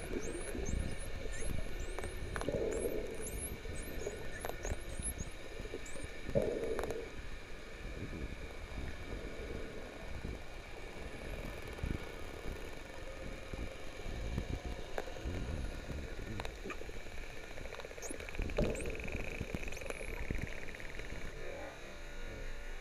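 Dolphins whistling underwater: a quick run of many short, high whistles sweeping downward in the first few seconds, and a few more later. Beneath them is a steady low rush of water noise, broken by a few muffled louder bursts.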